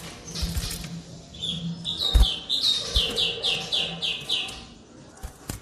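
White-rumped shama (murai batu) song: a run of about nine quick, repeated high whistled notes, roughly three a second. Several sharp knocks are scattered through it.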